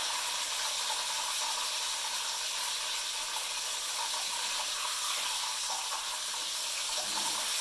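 Chicken breasts frying in hot oil in a skillet: a steady, even sizzle.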